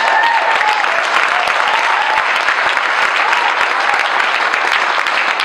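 Audience applauding loudly, a dense, steady clapping with a few voices calling out over it.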